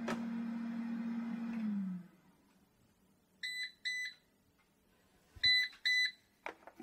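Philips air fryer's fan running with a steady hum, then winding down and stopping about two seconds in. A few seconds later the fryer beeps twice, then twice more, louder: the signal that its cooking timer has run out.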